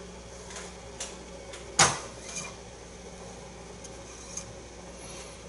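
Light handling noises as thread is worked around a wooden dowel: one sharp knock a little under two seconds in and a few faint clicks, over a steady low hum.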